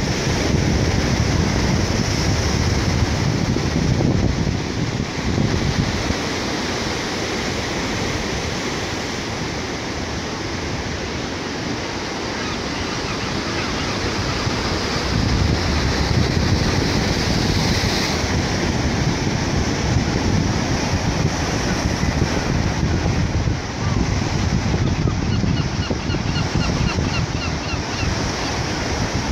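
Ocean surf breaking against a rocky shore, swelling and easing in loudness, with wind rumbling on the microphone.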